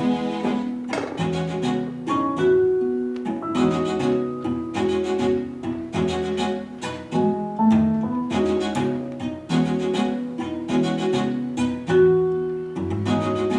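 Background music of string instruments, a run of short notes each starting sharply, over lower sustained tones.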